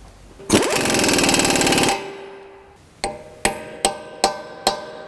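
A loud rapid mechanical rattle for about a second and a half, then five sharp metallic hammer strikes about 0.4 s apart, each ringing briefly: a hammer on a punch staking the front axle nut of a Honda Element.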